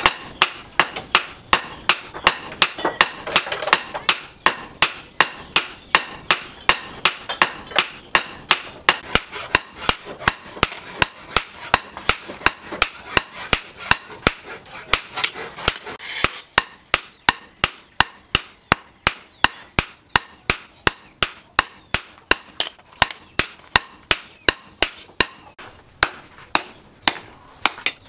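Hammers striking red-hot disc-plough steel on a steel-post anvil: a steady run of sharp, ringing blows, about three a second.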